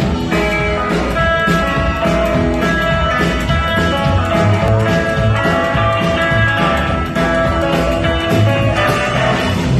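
Live rock 'n' roll band playing a boogie with a steady beat, guitar to the fore over bass and drums.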